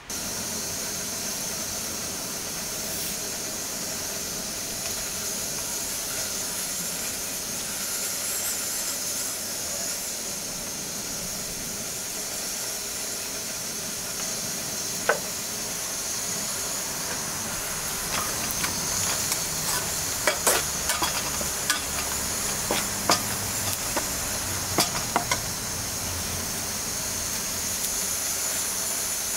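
Food sizzling steadily in a hot pan. About two-thirds of the way in, a utensil starts clicking and scraping against the pan as the food is stirred.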